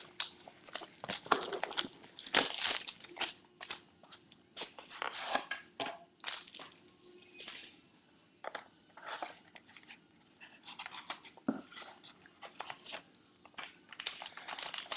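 Plastic shrink wrap being torn and crinkled off a sealed box of trading cards, in irregular bursts of rustling and crackling with a short lull partway through.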